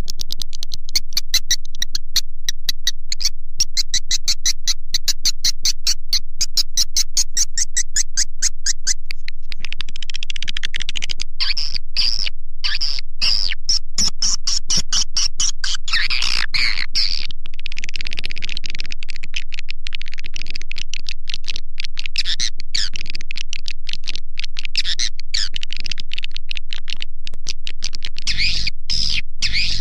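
Swiftlet call-sound track (suara panggil): electronically processed swiftlet chirps and twitters, played continuously to lure swiftlets into a swiftlet house. For the first nine seconds or so it is a fast, even pulse of high chirps, then a dense, high twittering.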